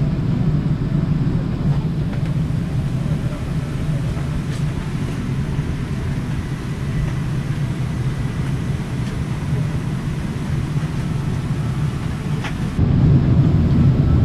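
Steady low rumble and hiss of a Boeing 737-800's cabin ventilation heard inside the parked aircraft during boarding, with a few faint clicks. The level steps up abruptly near the end.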